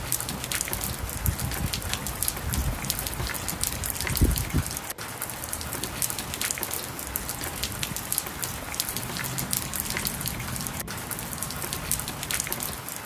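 Steady rainfall, full of many close, sharp drop ticks. A low rumble runs beneath it for the first few seconds.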